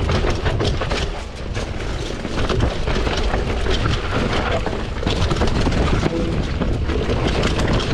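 Commencal Supreme DH downhill mountain bike riding down a rough trail: tyres on dirt and rocks with a dense, irregular clatter of chain and frame rattle over a steady low rumble.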